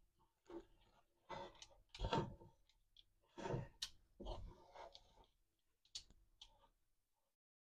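Wooden spatula mashing stiff wheat-flour dhindo in a nonstick frying pan: faint, irregular scraping and pressing strokes, roughly one a second, that stop near the end. This is the final mashing stage of cooking the dhindo over low heat.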